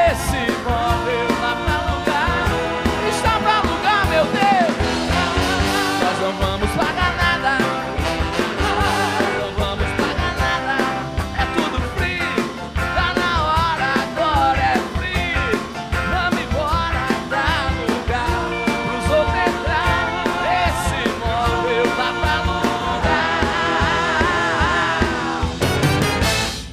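Live rock band (electric guitars, bass, drums, keyboard and a horn section of trumpet and trombone) playing with a male lead singer. The music cuts off suddenly at the very end as the number finishes.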